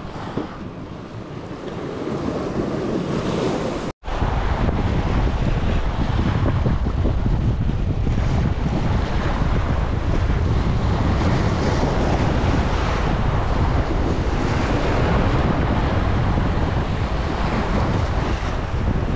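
Sea waves washing against the shore with wind buffeting the microphone. About four seconds in the sound drops out briefly, then comes back with a louder, deeper wind rumble.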